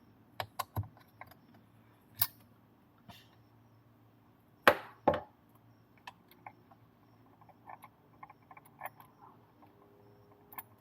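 Scattered sharp clicks and small knocks of tools and RC car parts being handled while the motor mount is adjusted to set the pinion-to-spur gear mesh. Two louder knocks come close together about five seconds in, and lighter ticks follow.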